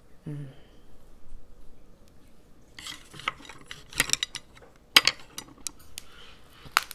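Chopsticks clicking and tapping against a plate in a few sharp strikes, with soft rustling of leaves being folded into a ssam wrap.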